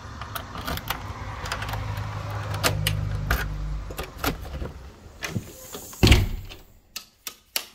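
A key working a front-door deadbolt and knob, with a run of metallic clicks and knocks as the door is unlocked and opened over a low rumble, then one heavy thump about six seconds in, then a few light clicks.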